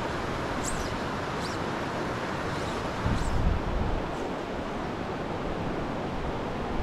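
Steady rush of a shallow creek flowing over rocks and a riffle, with a brief gust of wind buffeting the microphone about three seconds in.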